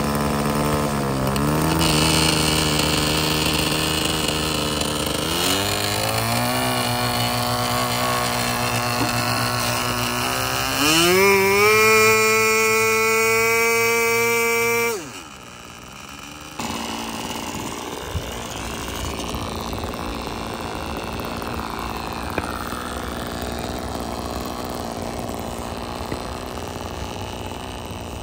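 O.S. 15 LA two-stroke glow engine on a small balsa RC plane being run up: it rises in pitch in three steps from idle to a high, loud full-throttle whine. It holds there for a few seconds, then drops sharply back to a quieter idle. This is a pre-flight run-up check before the maiden flight.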